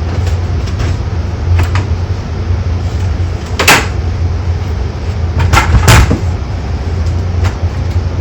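Several sharp knocks and clunks over a steady low hum, the two loudest knocks a little before the middle and a couple of seconds later.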